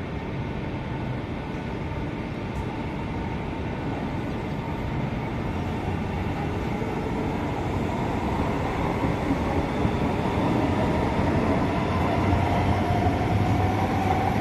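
SMRT C151 electric metro train departing the station and accelerating along the viaduct, its running noise growing steadily louder. About ten seconds in, a traction-motor whine rises in pitch as the train picks up speed.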